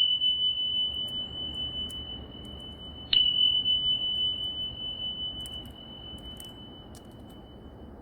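A high, pure ringing tone struck twice, once at the start and again about three seconds in, each strike fading away slowly.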